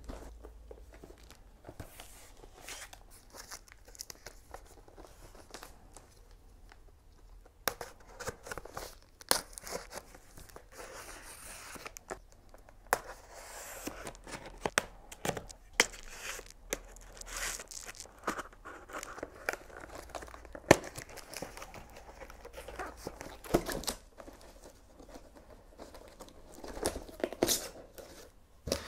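Plastic courier mailer being slit and torn open, the plastic crinkling. Faint at first, then from about eight seconds in, irregular tearing and rustling with scattered sharp clicks as the package is handled.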